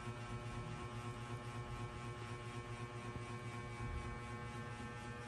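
A steady low hum with many fixed tones over faint background noise.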